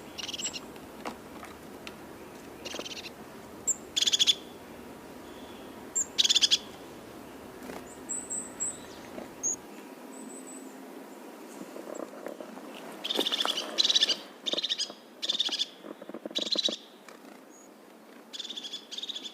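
Birds calling: short, harsh, buzzy calls at intervals, mixed with thin high chirps, running into a quick series of calls about two-thirds of the way through.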